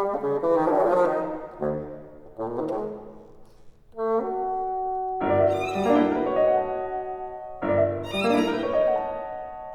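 Chamber ensemble of bassoon, violin and piano playing an instrumental passage between sung lines. A quick busy run of notes gives way to held notes, with two loud chords reaching low about halfway through and near the end.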